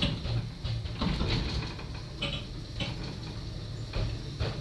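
Small-gauge railway passenger carriage in motion: a steady low rumble with irregular clicks and rattles from the wheels and bodywork.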